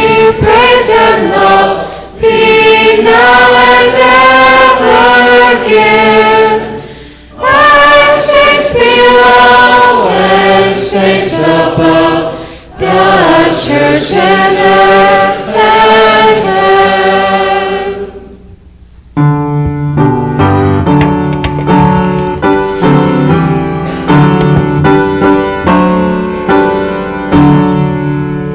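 Congregation singing a hymn, phrase by phrase with short breaks for breath. The singing ends about two-thirds through, and after a second's pause a piano plays on alone.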